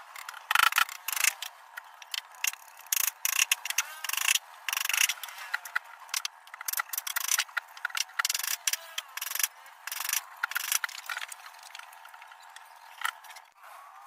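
Hammer driving nails into a plywood and timber shelf frame: runs of quick, sharp knocks with short pauses between them.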